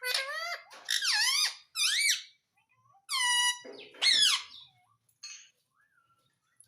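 Pet parrot calling: about five loud, high-pitched calls in quick succession, each sliding up and down in pitch, dying away after about four and a half seconds.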